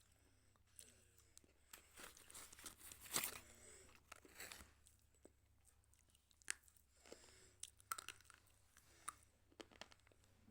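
A person biting and chewing slate pencil: quiet, irregular brittle crunches, loudest in a cluster about three seconds in, with scattered single cracks after.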